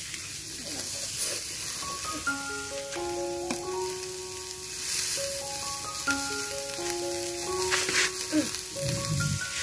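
Armored suckermouth catfish sizzling on a wire grill over charcoal: a steady hiss with occasional crackles. A gentle melody of held notes plays over it from about two seconds in.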